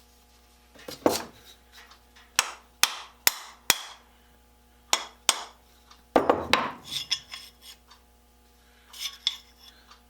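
Irregular sharp metal clinks and knocks, each ringing briefly, with a longer clatter about six seconds in: a steel hand tool being handled and set down on a workbench.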